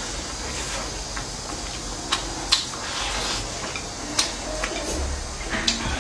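A few sharp clinks of tableware, utensils knocking against bowls and dishes, over a steady hiss.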